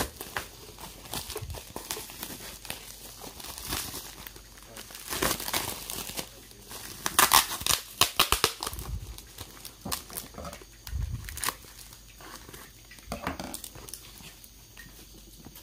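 Plastic bubble wrap crinkling and rustling as it is pulled off a small cardboard parcel, in irregular crackles that are loudest around the middle.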